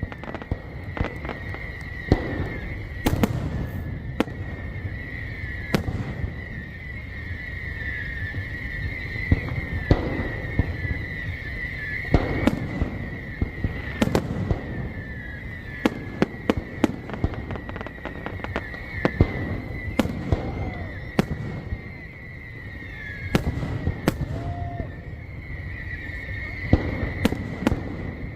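Fireworks going off: many sharp bangs and crackles over a continuous low rumble of booms, with a steady high whine underneath.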